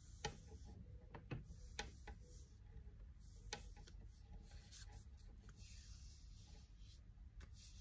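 Faint rubbing of an ultrasonic cavitation probe's metal head sliding in strokes over gel-covered skin, with a few soft ticks.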